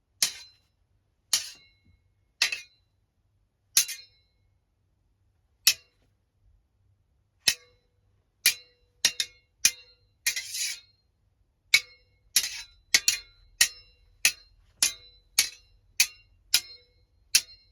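Two steel swords clashing, blade on blade, each hit ringing briefly. A few spaced strikes come first, then quicker strikes at about two a second in the second half.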